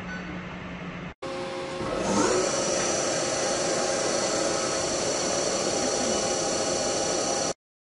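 CNC machine tool running: a steady hum cuts off about a second in, then the machine sounds again and a whine rises about two seconds in as the spindle speeds up, settling into a steady high whine over a hum. The sound stops suddenly near the end.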